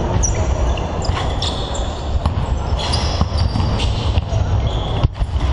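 Several basketballs bouncing irregularly on a wooden gym floor during warm-up, the thuds overlapping and echoing in a large sports hall, with voices mixed in.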